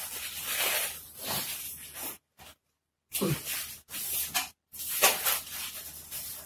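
Long latex modelling balloon being squeezed and twisted by hand: hissy rubbing of the latex in short spells, with a few brief squeaks.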